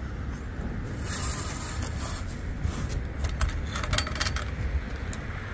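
Metal clicks and clinks of a rooftop tent's support pole being unclipped and pulled out, several in quick succession in the second half, over a steady low rumble.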